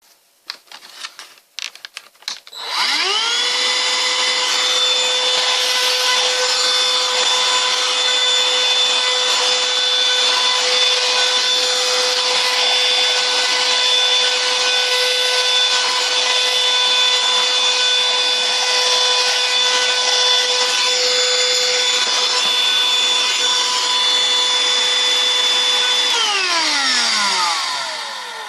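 Black & Decker PV1820 18 V cordless handheld vacuum, running on a freshly rebuilt lithium battery pack: a few clicks, then the motor spins up to a steady high whine with a rush of air. It holds speed without faltering, then is switched off about two seconds before the end and winds down in pitch.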